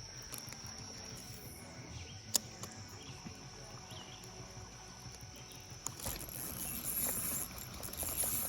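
Insects trilling steadily on one high pitch. There is a single sharp click a little over two seconds in, and a louder stretch of noise about six seconds in.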